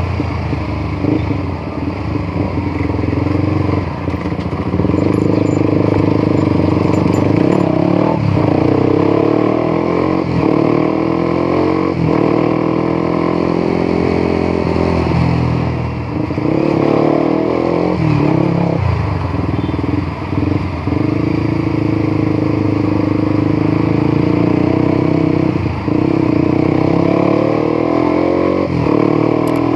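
Honda CBR150R single-cylinder engine running while the motorcycle is ridden. Its pitch rises and falls with short dips at gear changes, several times.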